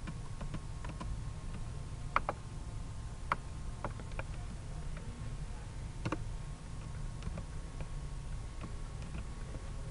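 Scattered, irregular clicks of computer keyboard keys and a mouse, a few at a time rather than steady typing, over a steady low hum.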